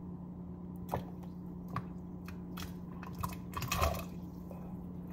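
Sliced rice cakes dropped into a pot of hot broth: a scatter of small soft plops and taps, a few at a time, with a denser cluster about three and a half seconds in as the rest are tipped in from a glass bowl. A steady low hum runs underneath.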